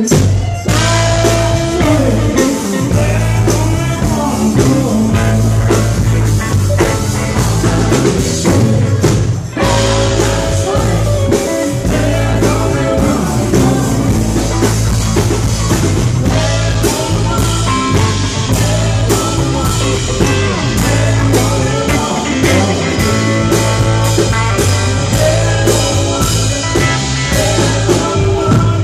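Live band playing a song with drums, electric guitar and pedal steel guitar, with a singer's voice over it.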